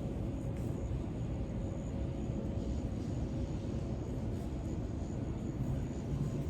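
Steady low outdoor rumble with a faint steady hum above it, no distinct events.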